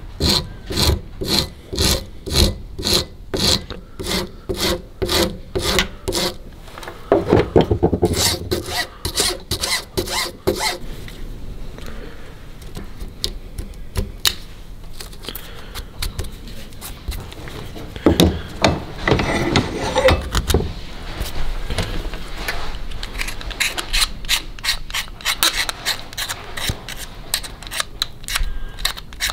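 Hand file scraping back and forth across a curtain-rail bracket clamped in a vise, shaving it down, about two strokes a second, faster and denser for a few seconds, quieter through the middle, then steady strokes again near the end.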